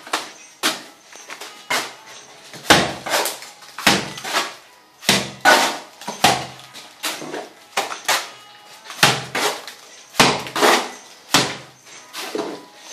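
Steel trowel scooping and flinging wet cement mortar onto a hollow-brick wall, filling in the render coat: a run of sharp slaps and scrapes, roughly one to two a second.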